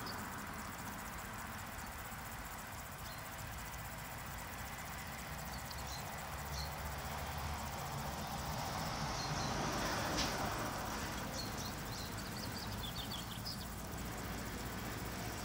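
Steady background hiss with faint rustles and light clicks from the straw bedding as the lamb shifts on its feet.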